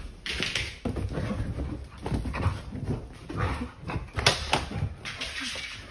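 Dogs play-fighting, with whimpering and short noisy vocal sounds that come and go irregularly.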